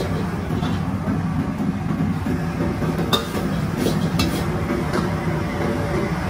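Wok cooking over a high-flame commercial wok burner: the burner's steady rushing noise under sizzling food as the wok is tossed, with a few sharp metal clinks against the wok about three and four seconds in.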